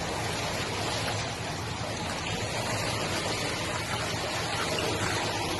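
Swimming-pool water making a steady rush of splashing and sloshing as a small dog paddles in it.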